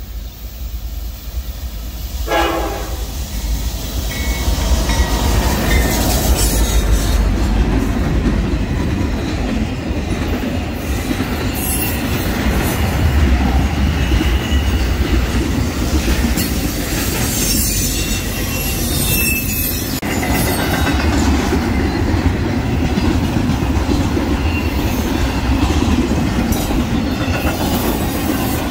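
Norfolk Southern freight train passing at close range. The diesel locomotives' deep rumble builds up a few seconds in. It is followed by the steady rumble and wheel clatter of intermodal cars rolling past, with faint wheel squeal.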